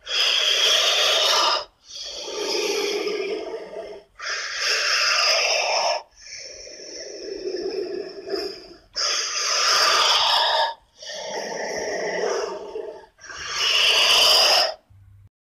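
Monster creature sound effects: a string of about seven breathy, hissing calls, each about two seconds long, with brief pauses between them.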